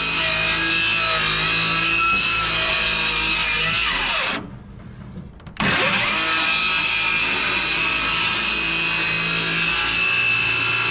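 Electric power saw cutting through a wooden siding board to cut out a traced window opening. It runs steadily, stops about four seconds in with its motor winding down, starts again about a second later and cuts on until near the end, where it winds down again.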